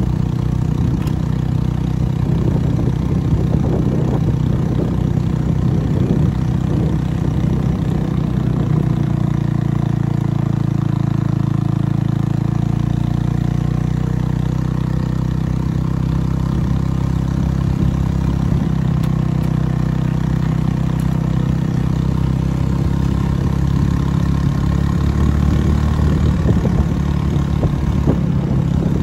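Motorcycle engine running steadily at low road speed with a loud exhaust, the sign of a worn muffler that needs replacing.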